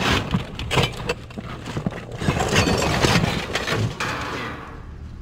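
Plastic trash bags crinkling and rustling, with irregular knocks and clatter of items, as hands rummage through a dumpster. It dies down near the end, leaving a low steady hum.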